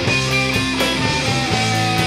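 Rock band playing live: electric guitars, bass and drums, with a steady cymbal beat.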